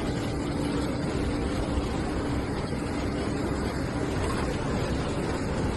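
Steady rushing noise of fast-flowing floodwater. A faint steady hum sits under it for the first two seconds or so.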